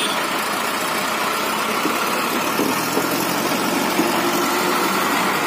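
Mahindra 555 tractor diesel engine idling steadily.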